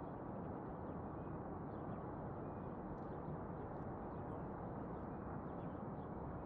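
Steady outdoor background hiss and low rumble, with a few faint scattered ticks.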